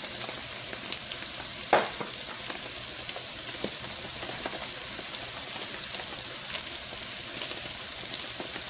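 Cooked rice, onions and egg frying in hot oil in a wok, a steady sizzle with scattered light clicks and one sharper knock a little under two seconds in.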